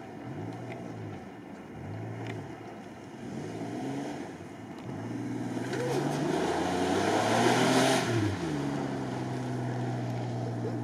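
An off-road 4x4's engine revving up and falling back in repeated surges about once a second. About halfway through it climbs to a louder, higher run with a rush of noise for a couple of seconds, then drops to a steady lower note.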